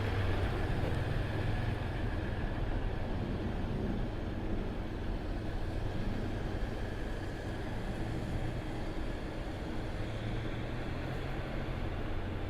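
Steady low rumble of background street noise with a constant low hum, like a vehicle engine running nearby.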